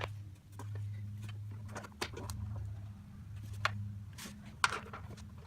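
Scattered light metal clicks and knocks of hand tools on riding-mower engine parts during a teardown, over a steady low hum.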